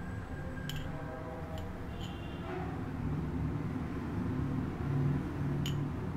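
Hands packing damp rice flour (puttu powder) into a glass: a few light clicks and taps over a steady low hum.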